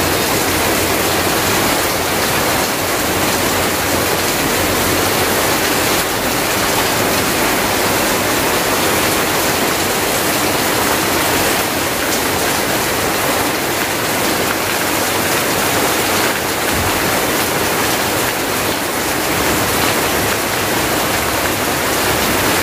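Heavy rain falling steadily as an even hiss, with runoff pouring off a roof edge onto the ground.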